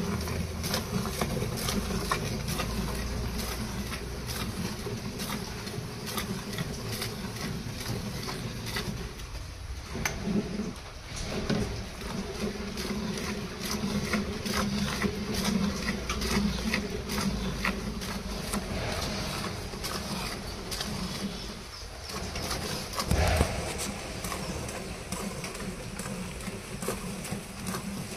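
Hand milking of a cow: jets of milk squirted from the teats into a steel bucket in a quick, uneven train of short splashes. A bird calls in the background.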